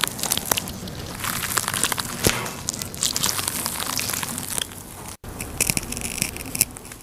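Dry, papery garlic skin crackling and crinkling as a knife tip cuts into it and peels it away from the cloves: a dense run of small crisp crackles, with a brief break about five seconds in.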